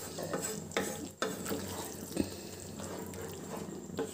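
A spatula stirring and scraping thick, creamy curry gravy in a pan, with a few short sharp scrapes over a faint sizzle from the simmering gravy.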